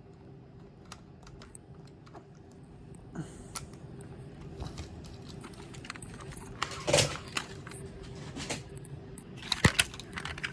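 Scattered light clicks and taps, with two louder knocks about seven and nine and a half seconds in, over a faint steady hum.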